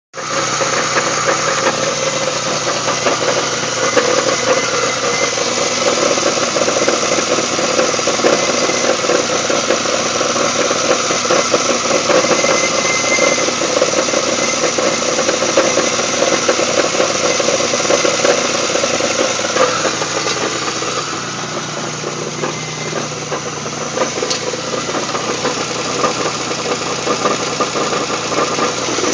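Pontiac Grand Prix GTP's supercharged 3800 V6 running with a nasty, steady rattle. The sound eases a little about twenty seconds in, then comes back.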